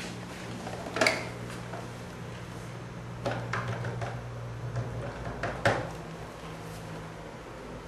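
Scattered knocks and plastic clatter of a white corded landline telephone being handled, its handset lifted off the base, over a steady low hum.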